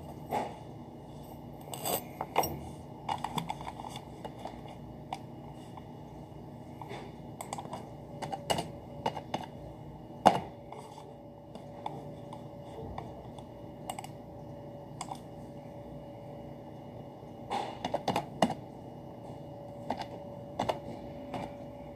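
Keys of a desk calculator pressed in short irregular runs with pauses between them, with one sharper, louder click about ten seconds in. A faint steady hum runs under the second half.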